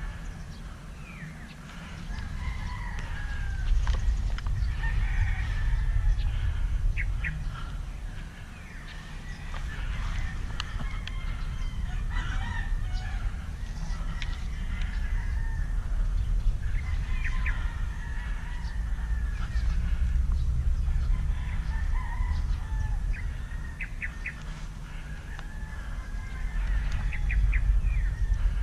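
Birds calling over and over, short curving calls that sound like fowl, over a steady low rumble.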